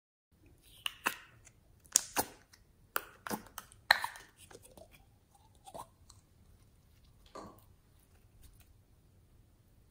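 Slime being worked by hand, giving a quick run of sharp wet pops and clicks in the first four seconds, then fainter squishes, with one more pop about seven seconds in.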